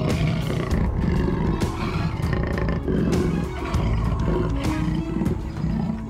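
Background music with a big cat roaring and growling over it.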